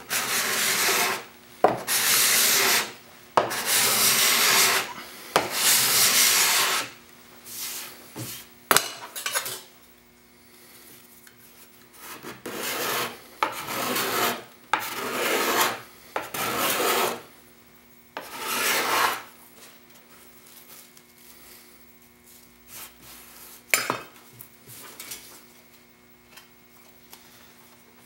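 A steel putty knife used as a hand scraper, pushed across a wooden board in repeated raspy scraping strokes of about a second each. The strokes come close together for the first several seconds, pause, resume, then thin out, with a couple of sharp clicks in between.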